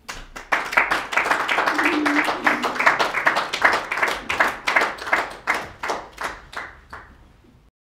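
Small audience applauding, starting suddenly and thinning into separate claps that fade out before the sound cuts off near the end.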